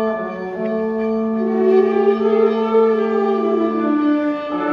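High school concert band playing a sustained wind-and-brass passage: a low note held for about four seconds beneath a melody line that rises and then falls.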